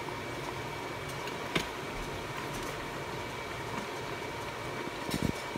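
Salmon pieces simmering in a little water in a stainless steel pot, a steady bubbling hiss over a steady background hum. A single sharp click comes about a second and a half in, and a few soft knocks come near the end.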